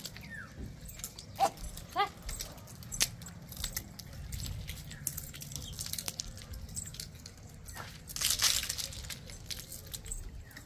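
Short sharp animal calls, three in the first two seconds, over a low background hum, then a burst of rustling about eight seconds in.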